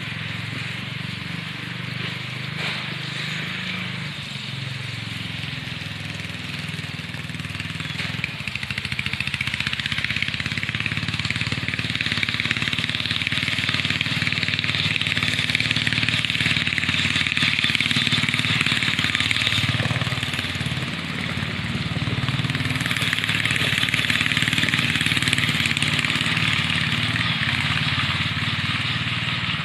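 Sears Suburban riding mower's 12 hp Briggs & Stratton engine running under way as the mower is driven across rough ground. The sound grows louder about ten seconds in, dips briefly around twenty seconds, then swells again.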